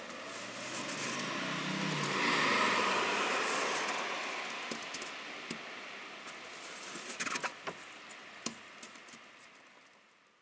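A car passing on a wet road: the tyre hiss swells to its loudest about two and a half seconds in and then slowly dies away. Scattered sharp ticks follow later, and the sound fades out at the end.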